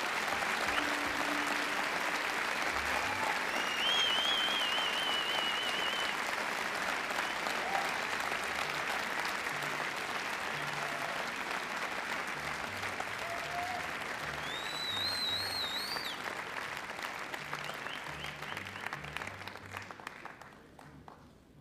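Concert audience applauding, with piercing whistles about four seconds in and again around fifteen seconds, and faint low instrument notes underneath; the applause dies away near the end.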